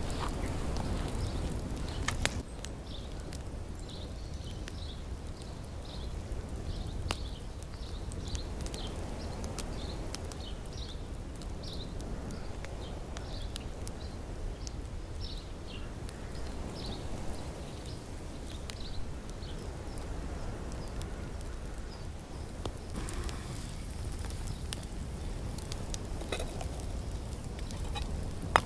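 Wood campfire crackling, with scattered sharp pops, over a steady low rumble. Short high chirps repeat at irregular intervals through the middle stretch.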